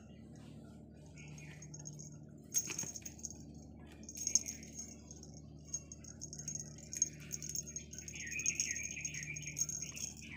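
A cat wand toy rustling and rattling as a kitten bats and grabs at it, with sharp light clicks and taps, over a low steady room hum. A wavering high chirping sound comes in about eight seconds in.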